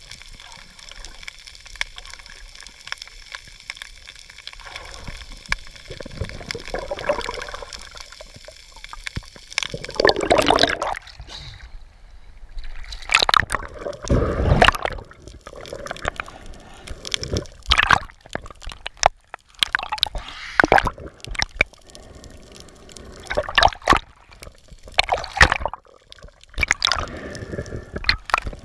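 Water gurgling and sloshing as heard by an underwater camera, with a faint steady whine in the first third. After that come irregular louder surges and swishes.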